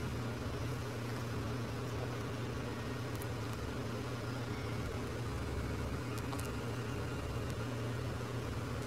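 Steady low hum over a hiss of background noise, with a few faint ticks about three and six seconds in.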